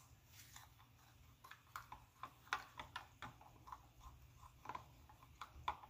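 Faint, irregular light clicks and taps, a few a second, over a low steady hum: small sounds of kitchen items being handled.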